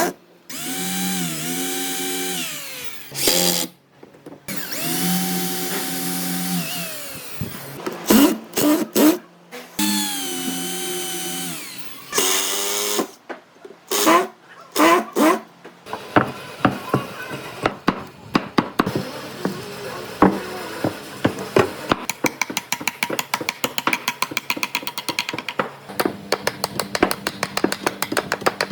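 An electric power tool working wood in several short bursts, its motor pitch sagging under load and winding down at the end of each. From about halfway it gives way to a long run of rapid scraping and clicking on wood.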